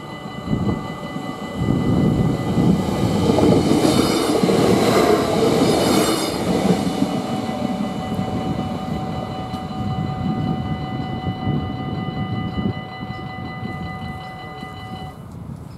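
A regional stopping train runs over the level crossing, its rumble and wheel noise swelling a couple of seconds in, loudest for about three seconds and then fading away. The crossing's warning bell rings steadily alongside and stops near the end as the barriers go up.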